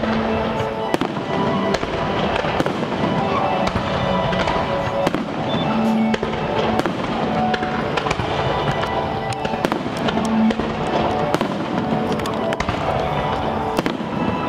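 Aerial fireworks bursting: a steady run of sharp bangs and crackles, with music playing underneath.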